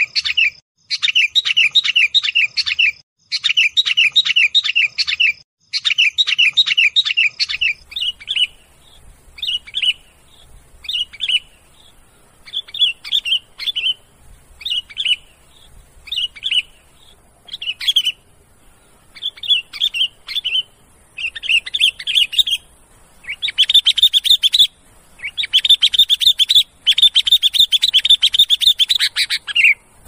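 Sooty-headed bulbuls (kutilang) chattering noisily in a bird-luring call recording. For the first several seconds the calls come as dense, rapid-note bursts about two seconds long. After about eight seconds they break into short call phrases about once a second over a faint hiss. Near the end they thicken into long, nearly continuous chatter.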